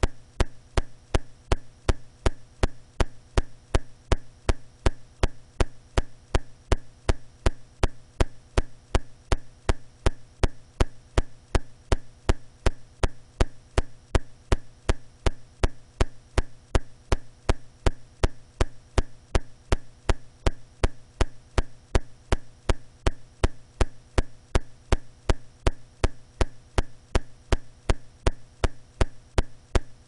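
Intermittent electrical popping from a faulty live-stream audio feed: sharp pops about three a second over a steady mains hum, with no voice coming through. The microphone signal has dropped out, which the host puts down to kicking the keyboard on the floor.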